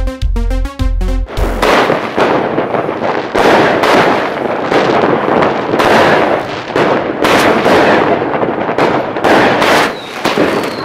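A short intro jingle with a pulsing bass beat ends about a second and a half in. Then aerial fireworks go off in a dense run of loud pops and crackling bursts, one after another.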